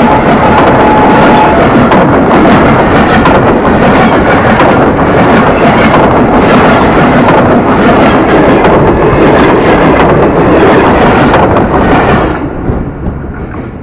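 A train running past a microphone at track level, with a loud overloaded rumble and wheel clatter on the rails. It falls away sharply about twelve seconds in as the last car rolls clear.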